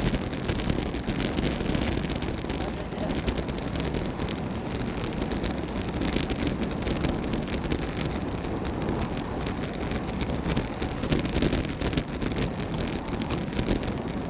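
Wind rushing and buffeting over the microphone of a bicycle-mounted camera at about 20 mph, with road noise from the tyres underneath.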